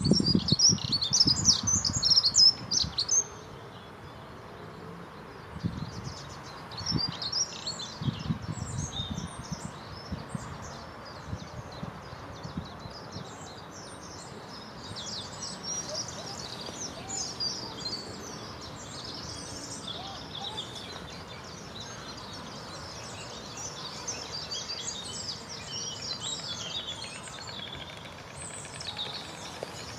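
A chorus of small songbirds, many short high chirps and trills overlapping. A loud low rumble runs through the first three seconds, with fainter ones around six and eight seconds in.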